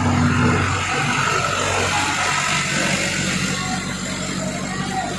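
Fire truck engine running steadily: an even low hum with a hiss of noise above it.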